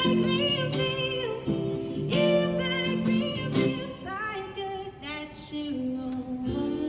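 Live acoustic guitar strumming chords in time, with a wavering melody line held above it between sung lines of a song.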